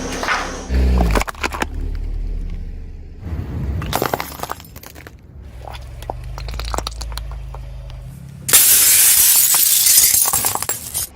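Glass lamps crushed under a car's tyres: a low rumble with many sharp cracks of breaking glass, then a loud shattering crunch of about two seconds near the end.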